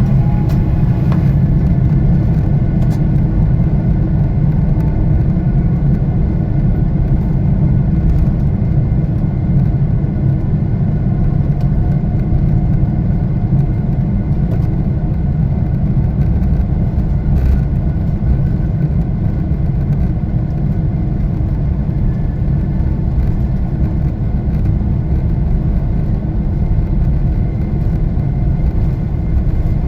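Jet airliner's engines and rushing air heard from inside the passenger cabin: a steady, loud low rumble with faint, even whining tones above it.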